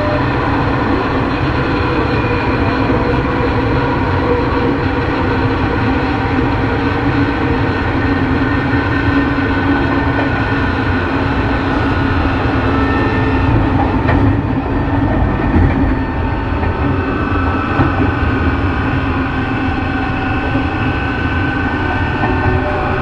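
Running sound inside a chopper-controlled Tokyo Metro 03 series motor car: traction motors and wheels on the rails make a steady rumble, with several steady tones from the chopper and motor equipment. The tones shift slightly about two-thirds of the way through.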